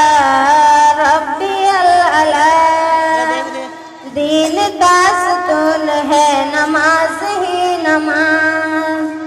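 Female voice singing the melody of an Urdu devotional nazm in long, wavering held notes, dropping away briefly about four seconds in before the line resumes.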